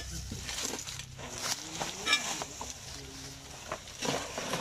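Metal hand tool scraping and knocking among dry leaves, roots and debris, with leaves rustling; a sharper clink with a short ring just after two seconds in, and further knocks near the end.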